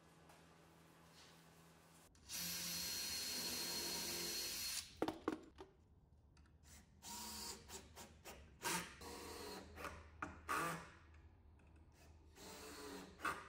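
A cordless drill driving screws into a wooden cabinet in many short bursts, the motor starting and stopping each time. Before that, a power tool runs steadily for about two and a half seconds.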